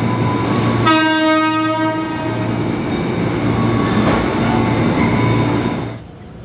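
Horn of a KRL Commuter Line 205 series electric train (ex-JR East 205 series) sounding one steady note about a second in, loudest for about a second and then carrying on more weakly, over the train's running rumble. Near the end the sound drops away suddenly.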